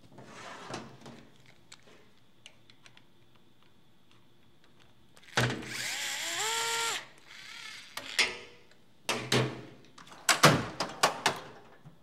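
DeWalt cordless electric screwdriver spinning up with a rising whine and running for about a second and a half on a screw in a typewriter's frame. Several sharp knocks and clatters of metal parts and tools on a steel workbench follow.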